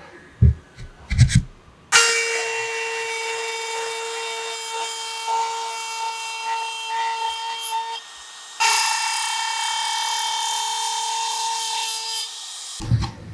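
Electric hand planer (Makita M1901), rigged as a benchtop thickness planer, running with a steady whine and cutting hiss as it planes wood. It starts about two seconds in after a few knocks, drops briefly about two thirds of the way through, resumes, and stops shortly before the end.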